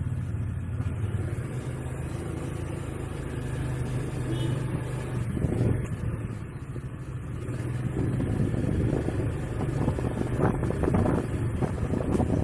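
Honda Vario scooter engine running, steady at first and throttled up harder in the second half, with irregular knocks coming in. The owner's complaint is a clacking ('ketak', 'klak') from the CVT whenever it is throttled.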